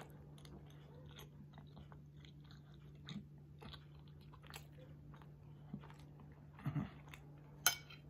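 Faint mouth sounds of a mouthful of boiled dumpling with mackerel gravy being chewed: small wet smacks and clicks come irregularly, and a sharper click falls near the end. The dense dough takes long chewing. A low steady hum sits underneath.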